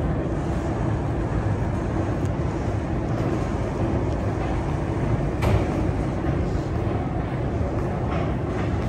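Steady low rumble of an underground metro station concourse, with one sharp knock about five and a half seconds in.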